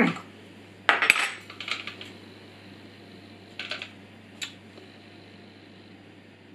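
Clicks and clinks of a Parkside PWS 125 E4 angle grinder being handled while its wheel guard is fitted by hand: a loud cluster of clattering clicks about a second in, then a few lighter clicks around four seconds in. A brief falling tone right at the start.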